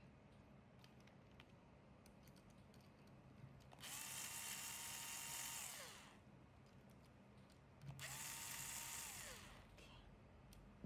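Small electric screwdriver running twice, each time for about two seconds: it spins up to a steady whine, then winds down, as screws are backed out of the grinder's old grounds outlet.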